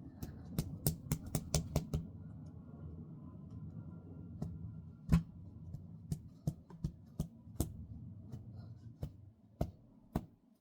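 Irregular hard clicks and knocks from the plastic parts of an old Dyson vacuum cleaner being handled and worked apart while clearing a clog. A quick run of clicks comes in the first two seconds, the single loudest knock about five seconds in, and the clicks grow sparse near the end.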